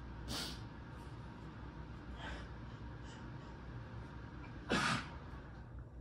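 A woman sneezing while sick: a fit of short, sharp sneezes, a fainter one about two seconds in and the loudest near the end.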